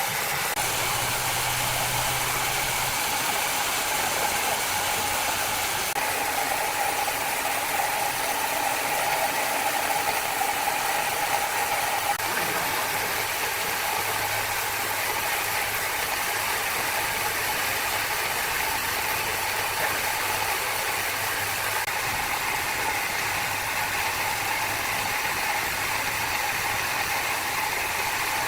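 Wood-cutting saw machinery running steadily, with a constant whine over a mechanical clatter.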